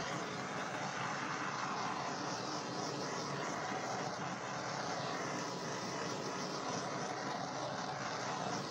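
Steady whoosh of a handheld blower's fan and air stream played over a wet acrylic pour painting.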